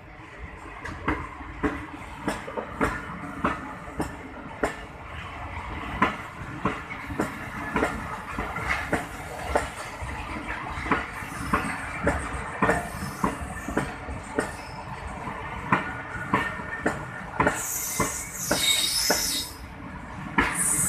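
Passenger coaches of the Karakoram Express rolling past on the next track, their wheels clattering in an even rhythm over the rail joints. A loud high-pitched hissing squeal rises over the clatter about eighteen seconds in and comes back briefly near the end.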